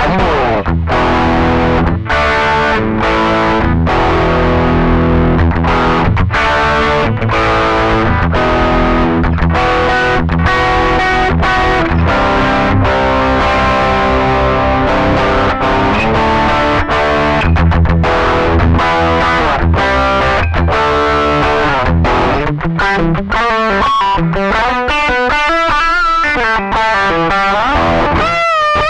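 Electric guitar played through distortion: riffs and chords broken by frequent short stops, turning about 22 seconds in to a single-note lead with wide vibrato.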